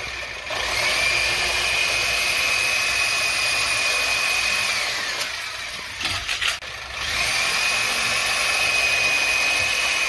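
DeWalt cordless reciprocating saw cutting into a wooden utility pole. The motor spins up to a steady high whine, winds down about five seconds in, with a few knocks during the pause, then spins up again and runs on.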